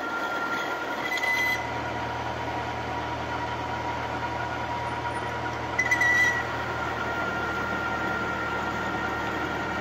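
Metal lathe running, its spindle and gearing giving a steady whine and hum while the cutting tool turns a metal workpiece. Twice, about a second in and about six seconds in, the cut briefly gets louder and shriller.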